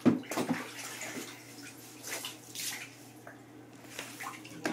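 Bathwater splashing lightly in a bathtub as a toddler moves and is washed, in short irregular splashes.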